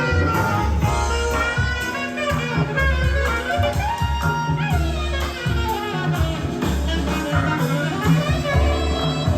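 Jazz music with a saxophone lead over bass and drums, played back from cassette tape on an Akai GX-9 cassette deck.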